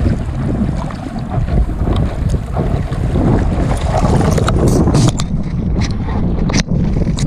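Heavy wind buffeting the microphone aboard a Sunfish sailboat under way, gusting unevenly. Several sharp clicks and knocks come in the second half.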